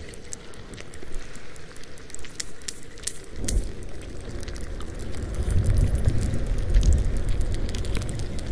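Pilot whale clicks recorded underwater, a dense run of sharp echolocation clicks. From about three seconds in, the echolocation is played at quarter speed, so the clicks become a low, dense pulsing that is loudest past the middle.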